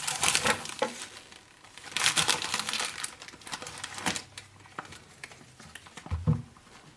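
Cologne packaging crinkling and rustling as it is handled, in two bursts, with a dull thump near the end.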